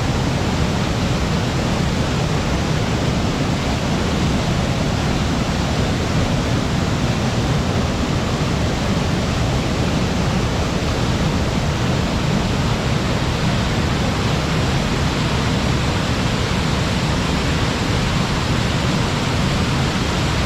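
Waterfall plunging: a steady, full rush of falling water, heaviest in the low end, without change.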